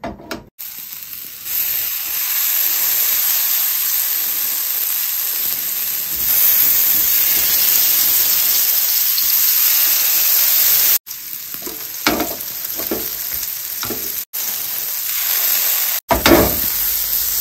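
Marinated paneer tikka cubes sizzling steadily as they fry in hot oil in a pan. Now and then a utensil scrapes as the pieces are stirred and turned. The sizzle cuts off abruptly for an instant three times near the end.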